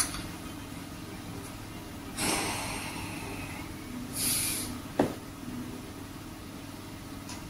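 Low steady room hum, broken by two short breathy noises from a person at the table, about two and four seconds in, and a single sharp tap about five seconds in.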